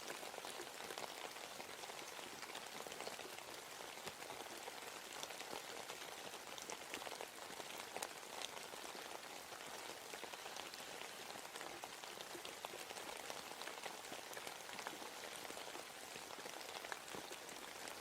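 Steady rain falling in a forest, with many separate drops pattering and ticking on leaves and surfaces over an even hiss of rainfall.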